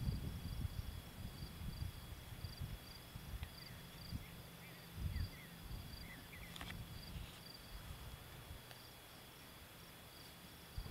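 Crickets chirping in an even rhythm, about two to three chirps a second, over a steady high insect trill, with a few faint short chirps in the middle and a low rumble that dies away early.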